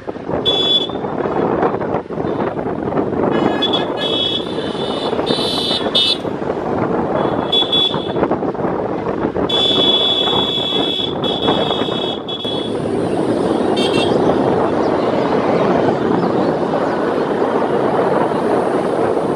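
Wind buffeting the microphone over road and engine noise from a moving two-wheeler, with several high-pitched horn toots. The longest toot, about three seconds long, comes around the middle.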